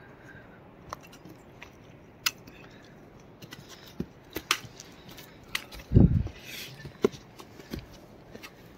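Hikers' footsteps scuffing and clicking on rock and dirt, irregular and uneven. About six seconds in there is a loud low bump, followed by a short fabric rustle, as the camera is knocked about against a backpack and jacket.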